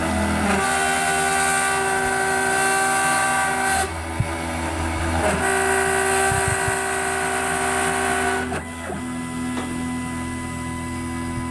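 Background music: sustained chords, with guitar heard just before and after, changing every few seconds.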